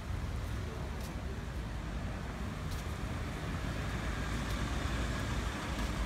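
Traffic noise: an SUV driving slowly past over a brick-paved street, a steady low rumble that grows slightly louder as it comes closer.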